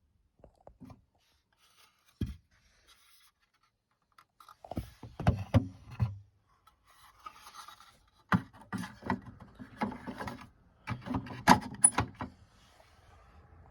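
Handling noise from toy washing machines being moved about: clusters of knocks, clicks and rubbing, after a mostly quiet start with one faint knock.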